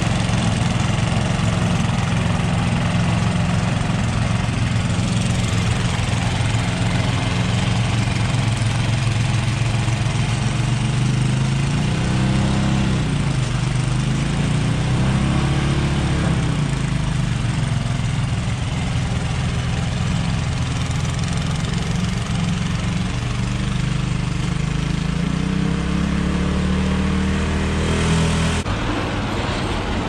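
Ariens Deluxe 24 two-stage snowblower engine running under load while clearing and throwing snow. Its pitch sags and recovers around the middle as it bogs in heavy, packed snow. It runs fairly smoothly after a carburetor cleaning, without much sputtering, though the owner feels it is losing some power.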